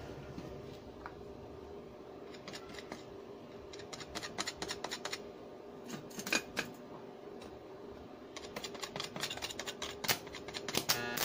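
Short metallic clicks, taps and scrapes as steel bar pieces and a stick-welding electrode holder are handled and set in place on a concrete floor, over a steady hum. The clicks get busier from about eight seconds in, with a quick scratchy run near the end.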